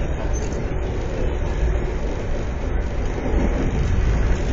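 Steady low rumble of an Amtrak Carolinian passenger train under way, heard from inside the coach: wheels running on the rails.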